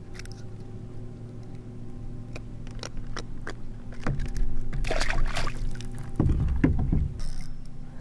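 Knocks, clicks and splashing around a Wilderness Systems Radar 115 plastic fishing kayak as a small fish is handled on the line beside the hull, ending in a few heavy low thumps about six to seven seconds in.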